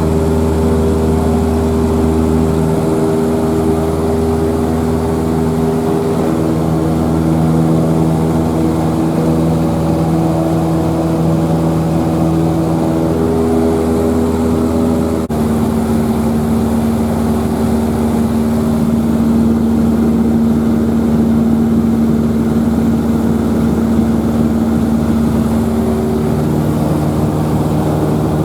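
Steady, loud engine drone with a strong low hum and held tones above it, briefly breaking off about halfway through.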